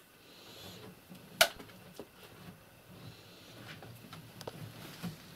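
Quiet hand work with a trowel, bucket and clay mortar while patching holes in a brick stove wall, with one sharp tap about one and a half seconds in and a few fainter ticks after it.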